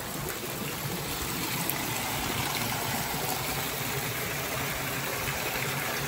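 Stream water running into a stone-walled pool: a steady, even rush of flowing water.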